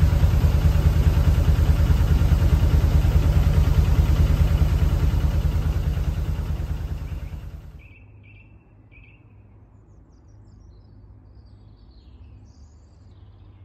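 Narrowboat's diesel engine idling with a steady rapid pulse, fading away about halfway through. After it, a few birds chirp and call.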